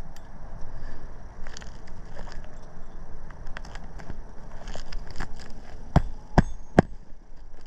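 Light crackling and tapping of asphalt shingles being handled, then three quick hammer strikes about six seconds in, driving a nail back into a lifted shingle.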